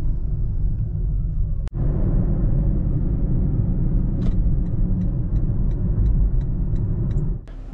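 Road and tyre rumble inside a 2017 Toyota Prius cabin while driving, with a turn signal clicking about three times a second from about four seconds in.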